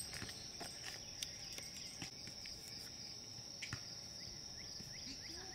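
Steady high-pitched insect chorus of crickets, with a few soft scattered ticks and thuds, like footsteps on a grassy path.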